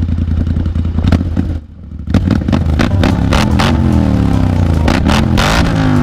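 Polaris Scrambler XP 1000 ATV's parallel-twin engine idling through its exhaust, then revved in a series of throttle blips from about two seconds in, each falling back in pitch, with sharp cracks between them. The sound drops out briefly about one and a half seconds in.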